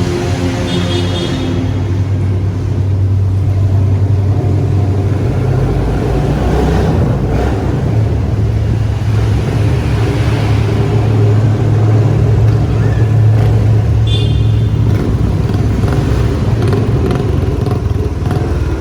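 A motor vehicle's engine running steadily while under way, with a strong low hum.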